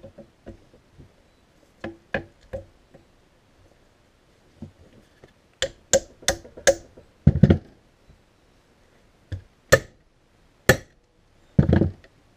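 Irregular sharp metal clicks and knocks, louder in the second half, as the bearing caps of a new front axle U-joint are fitted into the axle-shaft yoke.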